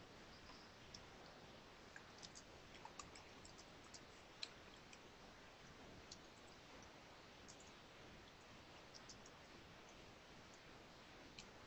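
Near silence: faint steady hiss with scattered, irregular small clicks, bunched a few seconds in.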